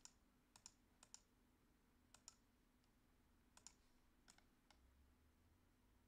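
Faint computer mouse clicks in an irregular series of about eight, several coming in quick pairs, over a low steady hum.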